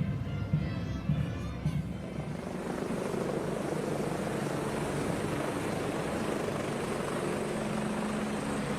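Helicopter flying over: a steady rotor and engine noise that swells in about two seconds in over band music and holds, starting to fade at the end.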